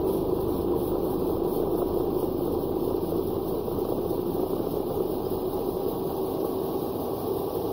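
Cummins ISB 5.9-litre 24-valve diesel running steadily, heard from inside the bus cab, with no response to the throttle. The owner thinks a bad electronic fuel control actuator is the cause.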